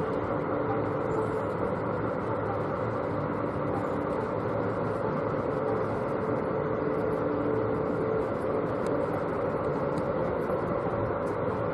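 Steady running noise of a standing locomotive, with a faint steady hum under it.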